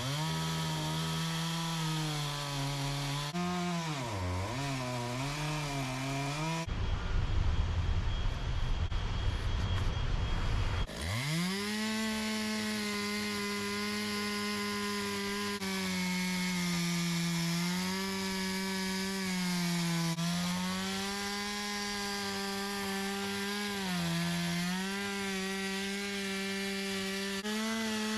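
Two-stroke chainsaw running at high revs, its pitch dipping and recovering as it cuts into the wood slab. About seven seconds in there are a few seconds of rougher, noisier sound, then the engine revs back up and holds steady with small dips under load.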